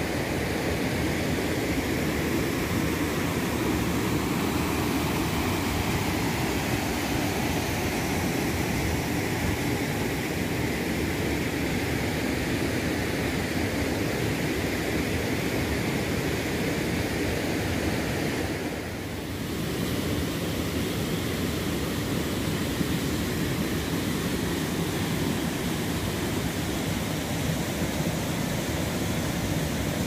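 Steady rush of a shallow, rocky river running over small rapids, dipping briefly about two-thirds of the way through.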